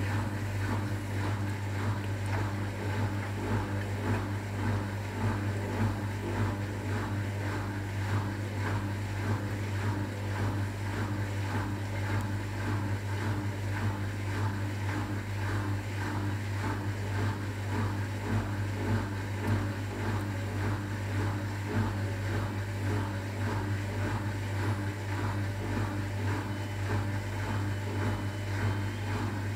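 Hotpoint WMA30 front-loading washing machine in its rinse: the drum motor runs with a steady hum while the drum turns the wet laundry in water.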